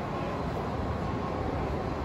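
Steady low rumbling ambience of a shopping-mall corridor, with no single clear source standing out.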